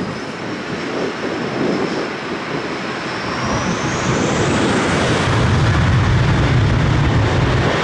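Aer Lingus airliner's jet engines spooling up for takeoff: a high whine that rises in pitch from about three seconds in, with a deep rumble building beneath it as the thrust comes up.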